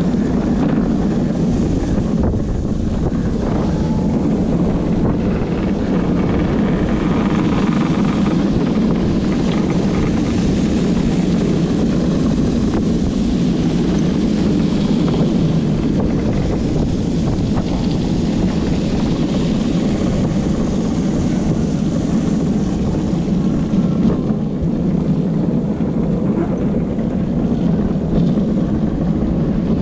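Steady low rumble of a gravity luge cart's wheels rolling fast down a wet track, mixed with wind rushing over a helmet-mounted GoPro's microphone.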